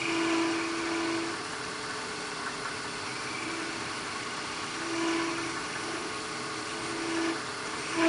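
Wood lathe running steadily while a scraper takes light passes across a spinning ebony knob, blending the insert into the surrounding surface. Each pass brings a short, louder ringing tone, about four times.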